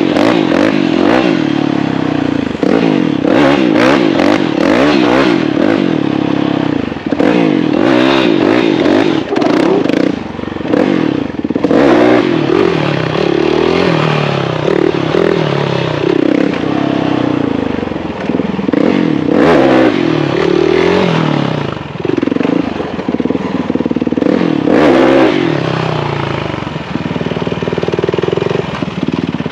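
Motorcycle engine running under way, its pitch rising and falling over and over as it is revved and let off, with scattered clatter.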